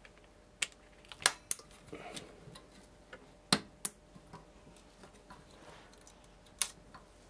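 Handling of a motherboard with a CPU cooler fitted: about half a dozen sharp, irregular clicks and taps of plastic and metal, with a soft rustle about two seconds in.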